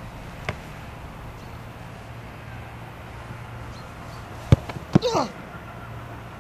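A football kicked hard, then a second thud about half a second later as the goalkeeper stops it in a dive, followed at once by a short cry falling in pitch. A steady low hum runs underneath.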